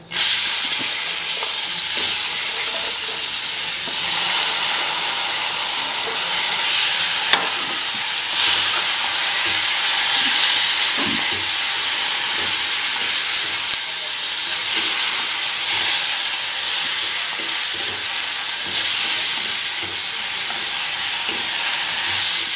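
Cut flat bean pods dropped into hot oil and turmeric in a steel kadhai, sizzling at once and then steadily as they are stirred with a wooden spatula. Occasional faint clicks of the spatula against the pan.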